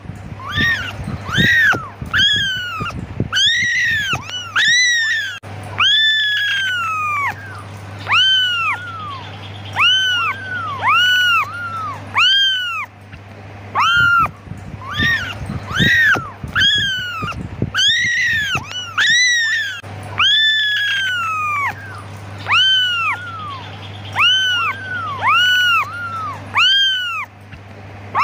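Very young kittens meowing over and over in high, arching cries that rise and fall in pitch, about one or two a second and sometimes overlapping: kittens calling for their mother.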